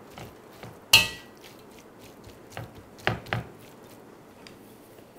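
A spoon clinking against a brass bowl while mixing rice with seasoned vegetables: one sharp clink with a brief metallic ring about a second in, then a few softer knocks around three seconds in.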